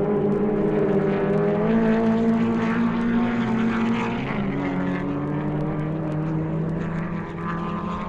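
Grand Prix racing car engines running at speed, several engine notes overlapping, from a 1960s vinyl sound-effects record. The engine notes shift a little in pitch as cars pass, one rising about a second and a half in and another dropping around four seconds in.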